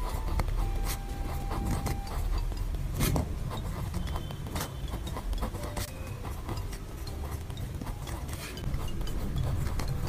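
Pen writing on lined paper: the nib scratching and tapping as each letter is formed, with a low rumble underneath.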